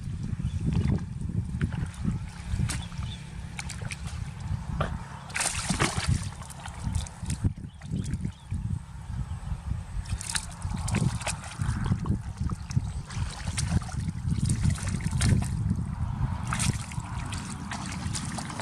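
Water splashing and sloshing in several short bursts over a steady low rumble.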